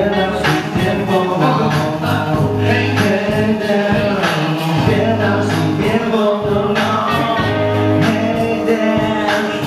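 Live band playing a song: men singing into microphones over electric guitar.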